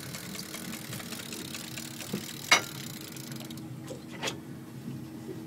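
Yamaha 250 outboard motor idling steadily. A few sharp knocks sound over it, the loudest about two and a half seconds in.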